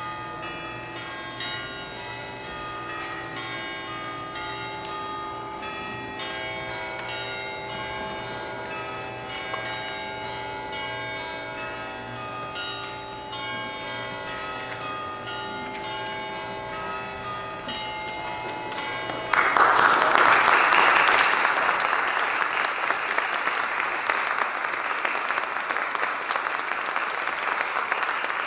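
Music of long, ringing held tones that change now and then. About nineteen seconds in, audience applause breaks out suddenly and carries on loud, drowning out the music.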